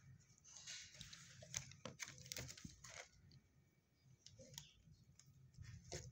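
Near silence: quiet room tone with a few faint, scattered clicks and rustles.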